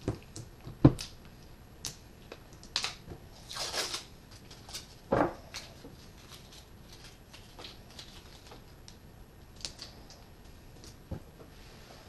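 Adhesive tape being handled, pulled and torn by hand while loops of it are made: scattered clicks and taps, the sharpest about a second in, with a longer ripping sound about four seconds in and a shorter one about five seconds in.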